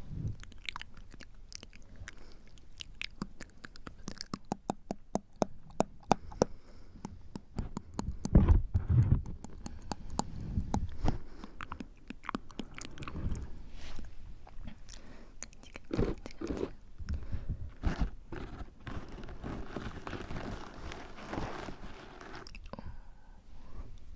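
Close-miked ASMR mouth sounds: rapid wet tongue and lip clicks, with heavy puffs of breath hitting the microphone about eight and sixteen seconds in. A longer breathy stretch comes near the end.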